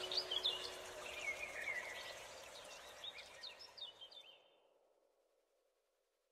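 Birds chirping over a faint steady tone, the whole fading out about four seconds in.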